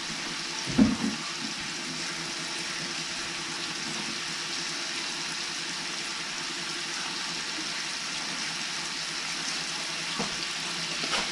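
Chopped garlic, basil and parsley sizzling steadily in olive oil in a skillet on low heat. A single knock about a second in.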